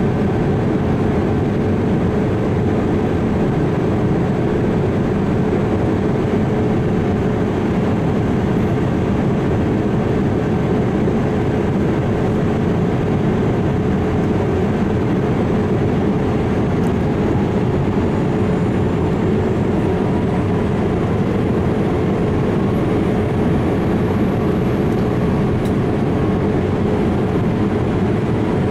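Steady, even drone of a Boeing 787-8 jet airliner, with a constant hum running through it. A faint high whine edges up in pitch in the second half.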